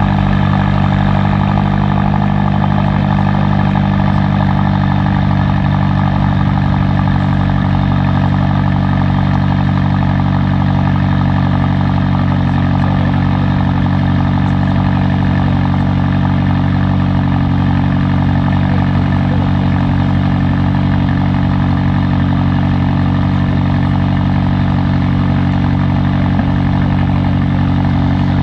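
A car engine idling steadily at an even, unchanging pitch.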